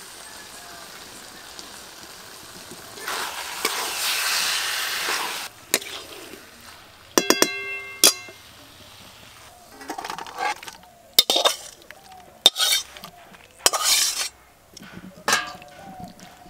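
Vegetable curry sizzling in a metal kadai as it is stirred, the hiss swelling for a couple of seconds. Then a metal spatula clinks and rings against the pan, and short scraping strokes follow as the curry is scooped out into a steel bowl.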